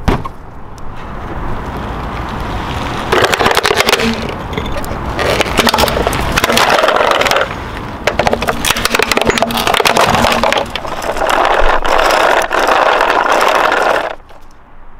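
Hard plastic toy truck cracking and crunching as a car tyre rolls over it, in several long spells of dense crackling that stop about a second before the end.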